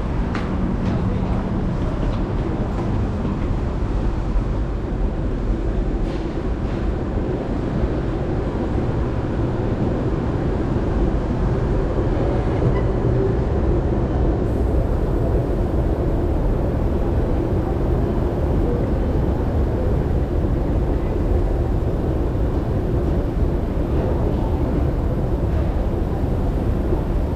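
Metro train running through a tunnel, heard from inside the car: a steady low rumble of wheels on rails and traction motors.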